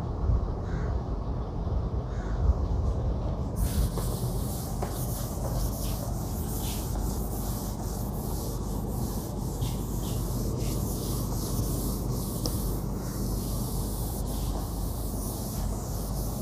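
A whiteboard being wiped clean with an eraser: a continuous hissing rub of quick back-and-forth strokes that starts about three and a half seconds in.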